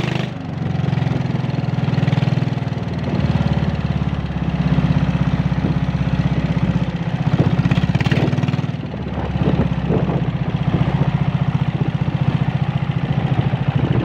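Small boat engine running steadily as it drives a narrow boat along a channel, with a brief dip about nine seconds in.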